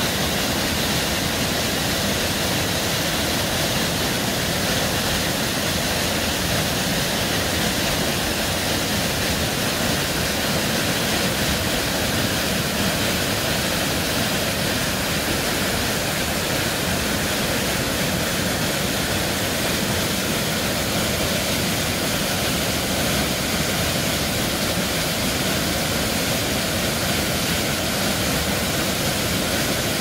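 Ganeso waterfall, about 15 m high, pouring into its deep plunge pool: a steady, unbroken rush of falling water.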